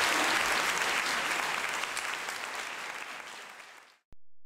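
Theatre audience applauding, the clapping fading away and stopping about four seconds in.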